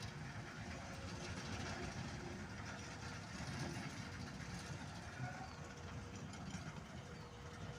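A heavy engine idling: a low, steady rumble.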